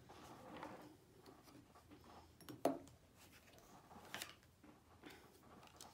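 Quiet handling of a boxed deck of playing cards on a wooden table as a card is drawn: a few soft clicks and taps, the clearest about two and a half seconds in and another about four seconds in.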